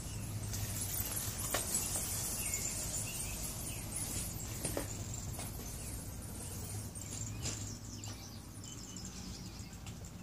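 Outdoor background noise: a steady low hum with faint bird chirps and a few light clicks.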